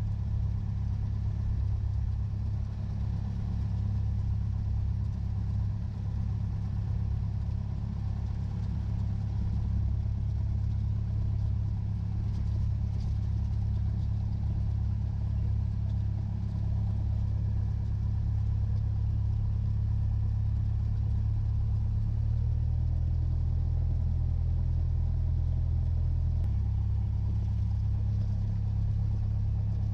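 Cessna 172's propeller engine running at low taxi power, a steady deep drone. About three-quarters of the way through its note shifts for a few seconds, then settles back.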